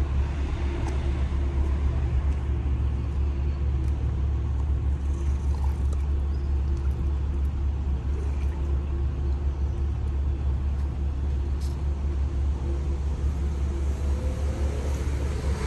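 Steady low rumble of a yacht's engines running slowly as it manoeuvres in to dock.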